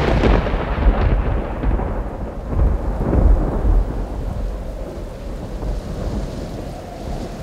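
Thunder rumbling over steady rain: the rumble of a thunderclap dies away, a second roll comes about three seconds in, and the rain hiss carries on more quietly after it.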